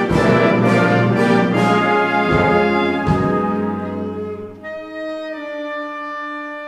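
Youth wind orchestra playing: the full band of brass and woodwinds with a few low drum strikes, then about four and a half seconds in the music drops back to softer held notes.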